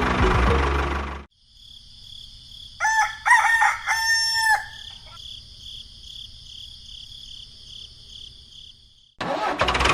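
A rooster crows once, a single cock-a-doodle-doo, over a steady pulsing chirr of insects. Loud machine-like noise cuts off about a second in and returns near the end.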